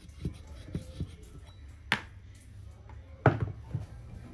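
A steel rod knocking and prying inside a valve bore of a Kärcher HD 585 pressure washer's brass pump head as a check valve is worked loose. There are a few scattered knocks and one sharp click, with the loudest knock about three seconds in.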